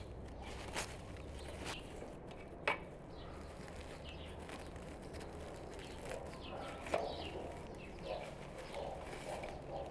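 Frost-covered garden greens being picked by hand: leaves rustle and stems give a few sharp snaps, and from about two-thirds of the way in the rustling grows busier. Small birds chirp faintly.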